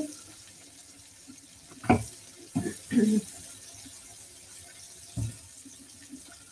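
Tap water running into a stainless-steel kitchen sink while hands work under it, with a few short knocks and clunks at about two, three and five seconds in.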